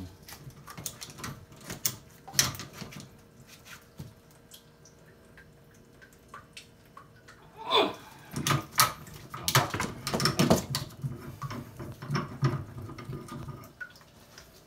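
Metal clicks, knocks and scrapes of a wrench and tool working on a brass compression angle stop valve on a copper water pipe. A brief falling squeak comes about eight seconds in, followed by a busier run of clicks and clatter.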